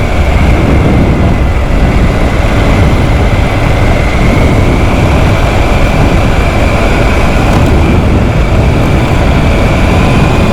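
Motorcycle on the move: steady, heavy wind rush on the rider's microphone over the running engine, with a faint steady whine that drifts slightly in pitch.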